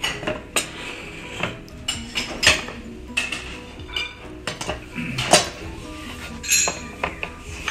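Chopsticks and utensils clinking and tapping against ceramic plates and bowls during a meal: irregular light clinks, with the sharpest about two and a half and five seconds in.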